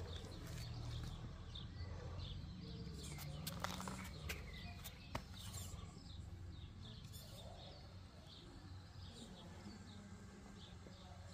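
Small birds chirping over and over, over a steady low hum, with a few sharp clicks about three to five seconds in.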